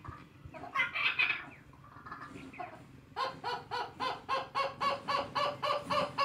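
Animal calls: a short burst of loud calls about a second in, then a rapid, even run of repeated pitched calls, about four a second, over the last three seconds.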